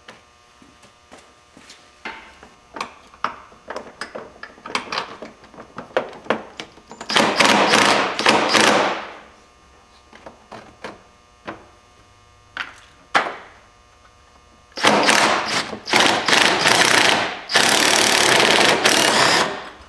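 Cordless DeWalt impact driver running in three bursts of about two seconds each, backing out the 10 mm bolts that hold the fan shroud. Between the bursts come clicks and knocks from the socket and tool being handled against the shroud.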